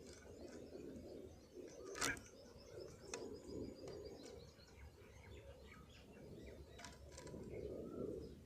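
Faint bird chirps over low pigeon cooing, with a few sharp clicks, the loudest about two seconds in.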